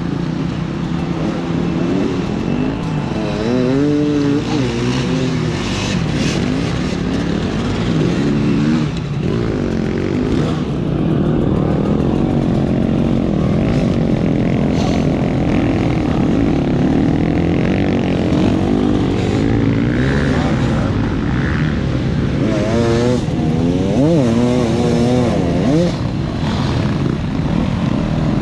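Enduro motorcycle engine running under load while riding off-road, its note rising and falling with the throttle. Quick rev changes come a few seconds in and again near the end.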